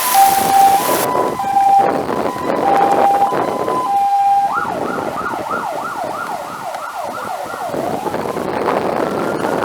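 Fire engine siren on an emergency run, alternating between two tones for about four and a half seconds, then switching to a fast yelp of about three sweeps a second, then to a slow rising wail near the end.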